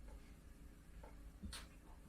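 Near silence: room tone with a few faint short clicks, about a second in and again a little later.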